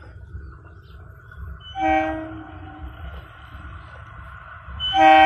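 EMU local train sounding its horn twice: a short blast about two seconds in, then a louder one starting near the end, over a low steady rumble.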